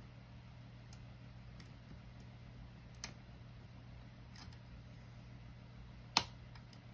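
Sparse small metallic clicks of lock picking tools working the pins of a Mul-T-Lock Junior cylinder clamped in a vise, the loudest about six seconds in, over a steady low hum.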